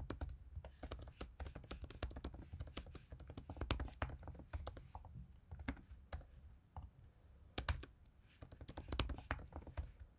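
Typing on a computer keyboard: quick, uneven runs of keystrokes with short pauses between them.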